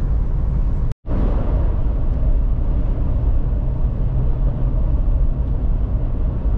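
Steady road and engine noise of a moving car, heard from inside the cabin, cutting out briefly to silence about a second in.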